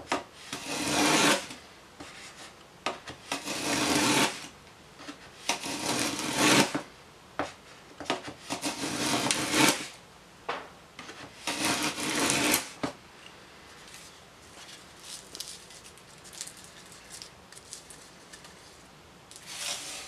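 A homemade wooden plough plane cutting a groove along a board's edge: five long strokes of the iron shaving the wood, about every three seconds, followed by lighter knocks and rustles as the plane and shavings are handled.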